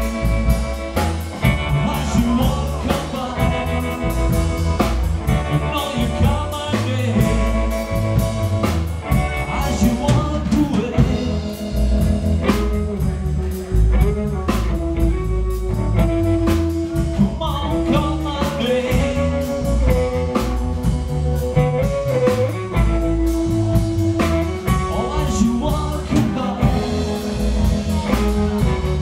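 Live band playing a bluesy rock-and-roll number: upright bass, electric guitar and drum kit, with a held, bending lead melody from the front man at the microphone.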